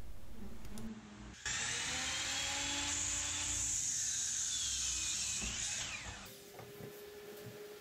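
Bosch sliding mitre saw running and cutting through a 4x4 post, a steady high whine that starts suddenly about a second and a half in and stops about six seconds in.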